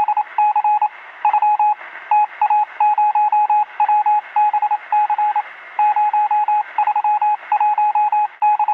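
Morse code: a single beep tone keyed on and off rapidly in short and long groups, over a steady hiss like a radio receiver's.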